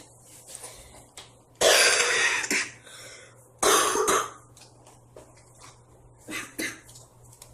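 A person coughing twice, about two seconds apart, the first cough longer than the second.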